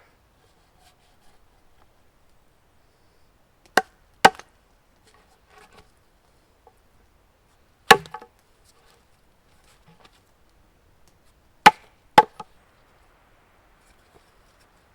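Small hatchet chopping timber: five sharp strikes into wood, a quick pair, a single, then another quick pair, a few seconds apart.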